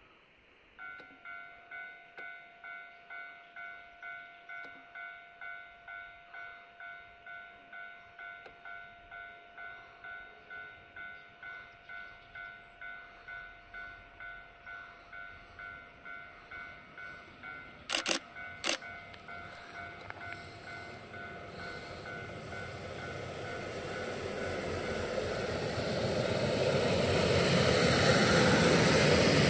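Level-crossing warning bell ringing about twice a second, then a railcar approaching and passing close by, its rumble growing steadily louder until it drowns the bell near the end. Two sharp clicks come just past the middle.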